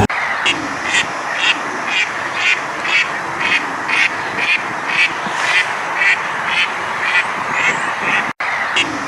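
An animal calling over and over, short evenly spaced calls about twice a second over a steady background hiss, with a brief break near the end.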